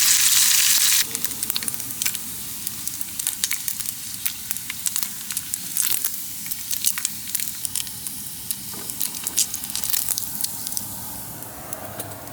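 Bacon frying in a pan, sizzling. A loud steady sizzle drops sharply about a second in to quieter sizzling with frequent sharp pops and crackles, which fades slightly near the end.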